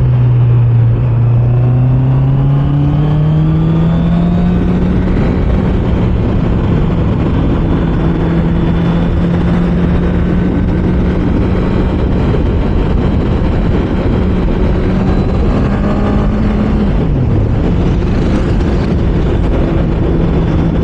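Honda CBR650R's inline-four engine pulling up through the revs over the first few seconds, then holding a steady cruise under heavy wind rush. About three-quarters of the way through the revs drop sharply for a moment and climb back.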